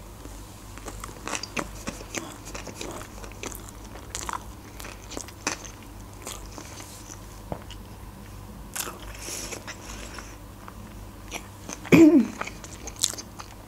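A person chewing a mouthful of sushi roll close to the microphone, with many small wet clicks and light crunches. A short voiced sound from the eater comes about twelve seconds in.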